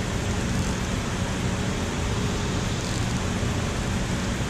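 Steady rushing of water pouring over a low-head dam's spillway, an even, unbroken roar heaviest in the low end.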